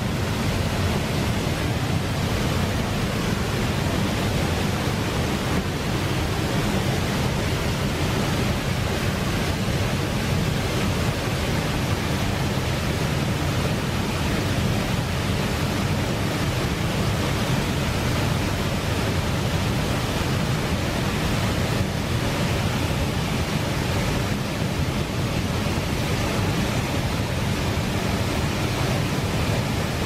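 Waterfall pouring over rock ledges into a plunge pool: a steady, full rushing of water with a deep low rumble.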